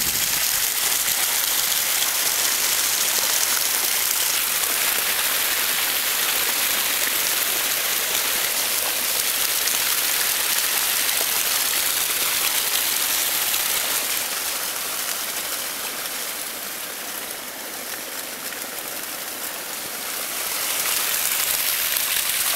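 Small mountain waterfall splashing steadily; the rushing water grows softer for several seconds past the middle and then comes back up.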